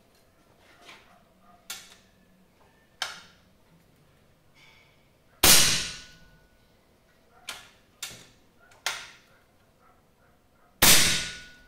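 Two shots from a Kral Super Jumbo PCP air rifle fitted with its original Kral Arms moderator, sharp cracks with a short ringing tail, a little over five seconds apart. There are a few fainter clicks before and between them.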